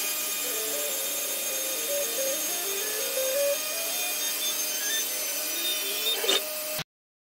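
CNC router running, its spindle cutting a curved part out of a thin wooden sheet. A steady high whine sounds with a lower tone that steps up and down in pitch as the machine moves along the curve. It cuts off suddenly near the end.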